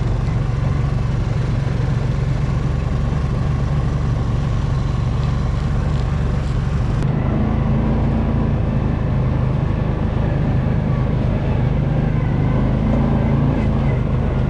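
Mule utility vehicle's engine running steadily while driving, a continuous low hum; a slightly higher steady tone joins in about seven seconds in.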